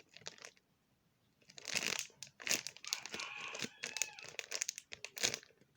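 Plastic packaging crinkling and rustling in irregular crackles as a squishy toy is handled. It starts about a second and a half in.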